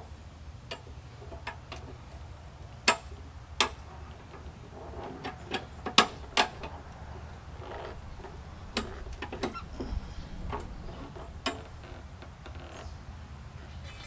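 Irregular sharp metal clicks and clanks from hand work on a steel push-mower handle being taken off and swapped, over a steady low background rumble.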